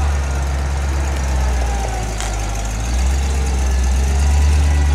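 Engine of a large propane-powered rigging forklift running as it drives, its low hum swelling about three seconds in, with a single sharp click about two seconds in.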